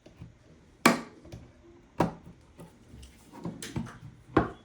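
Sharp cracks and knocks as the plastic housing of a BMW CAS3 module is pried open: three loud ones, the first about a second in, the next a second later and the last near the end, with lighter clicks between.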